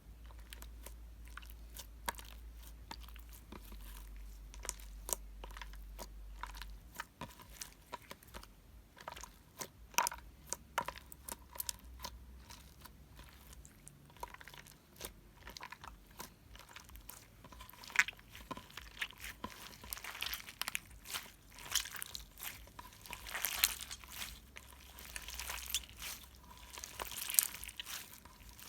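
Slime being squeezed and poked by hand, with many small sharp crackles and pops that grow denser and louder in the second half.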